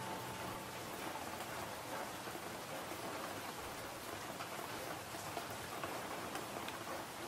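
Steady rain ambience: an even hiss of falling rain with fine pattering drops. The last note of a piece of music fades out within the first second.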